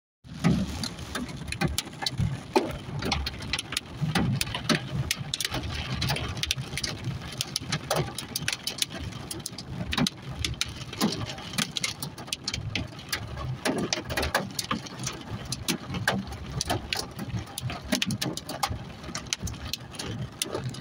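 Heavy rain striking a car's windshield and roof, heard from inside the moving car as a dense, irregular run of sharp drop impacts over the low rumble of the engine and tyres on the wet road.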